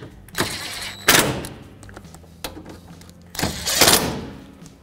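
A ratchet running down two bolts, in two bursts of about a second each, about three seconds apart.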